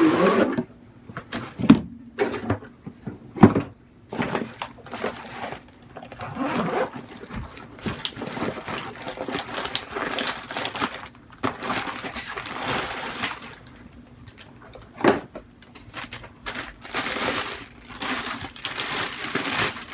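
Handling and unpacking noises of a tripod wheel dolly being taken out and set up: three sharp knocks of hard parts, about two seconds in, at three and a half seconds and near fifteen seconds, with stretches of irregular scraping and rustling between.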